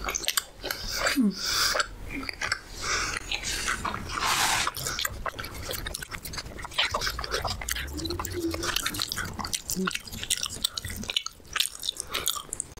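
Close-miked mouth eating sounds: wet chewing and smacking of deep-fried puri with chickpea gravy, full of quick short clicks and wet bursts.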